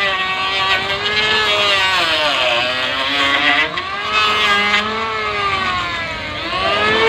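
Electric hand planer running while shaving a timber plank; its motor whine sags in pitch twice as the blades bite into the wood, then climbs back.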